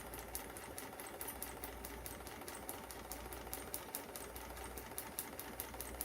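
Electric sewing machine running steadily, its needle stitching through paper with a rapid, even clicking over the low hum of the motor.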